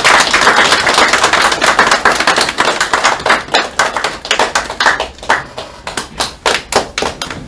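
A small group applauding: dense clapping that thins out over the last few seconds into a few scattered claps before stopping.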